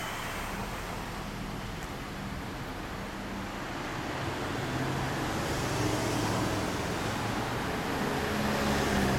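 1974 Kawasaki Z1A's air-cooled inline-four engine idling steadily through a Yoshimura exhaust, getting a little louder from about halfway in.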